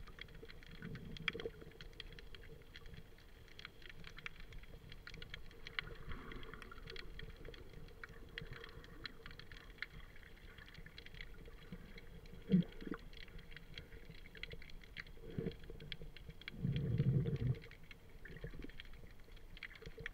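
Underwater ambience heard through a submerged camera: a steady fine crackling and clicking with low rumbling surges of moving water. A dull thud comes a little past halfway and a louder rushing surge near the end.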